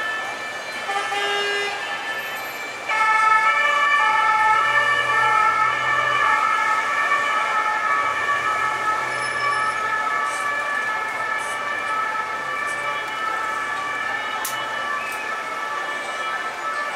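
Emergency vehicle siren on a city street, starting loud about three seconds in and slowly fading, over the low rumble of traffic.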